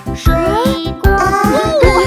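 Mandarin children's song: a sung melody over a bouncy backing track with a steady beat.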